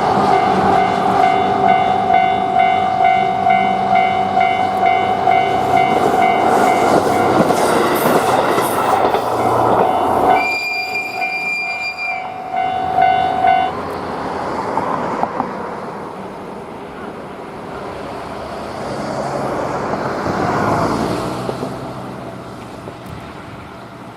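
Japanese level-crossing warning bell ringing in quick repeated strokes while a train passes, the train's horn sounding once for about a second and a half about ten seconds in. The bell stops about fourteen seconds in, leaving train running noise that fades and swells again near the end.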